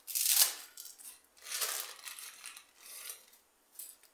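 Plastic spaghetti packet crinkling and dry spaghetti strands rustling as they are handled and tipped into a pot, in several short crackly bursts. The loudest burst comes at the start.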